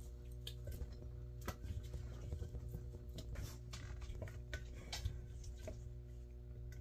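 Spatula scraping thick homemade peanut butter out of a blender jar, with scattered soft clicks and taps of the utensil against the jar, over a steady low hum.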